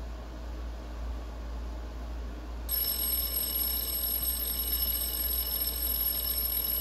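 An electronic alarm tone, steady and high-pitched, that starts suddenly about three seconds in and cuts off near the end. It is the kind of alarm that a voice assistant answers to "Computer, stop."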